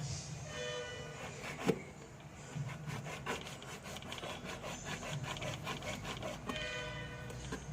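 Rapid, repeated rasping and scraping strokes of hand work such as filing or abrading, with a short squeal twice, about half a second in and again near the end.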